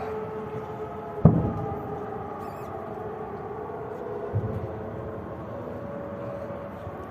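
A sharp bang about a second in, then a weaker thump a few seconds later, over a steady drone that holds several tones.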